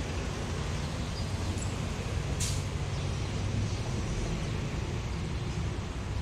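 City street ambience: a steady low rumble of traffic, with a short sharp hiss about two and a half seconds in.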